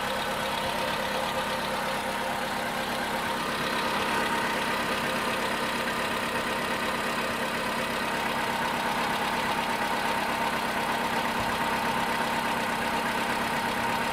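Volkswagen Polo's 1.6-litre CFNA four-cylinder petrol engine running steadily at idle with a knock, which the owner cannot place between the hydraulic lifters and the pistons and connecting rods.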